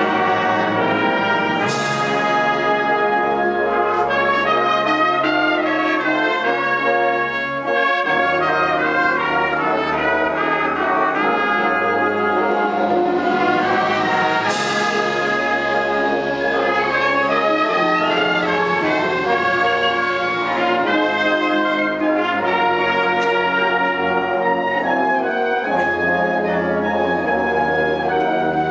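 Wind band playing slow, sustained brass-led chords, with cymbal crashes about two seconds in and again about halfway.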